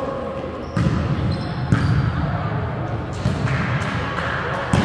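Volleyball being struck during a rally: several sharp hits on the ball, roughly a second or more apart, each echoing in a large hall over a steady low rumble.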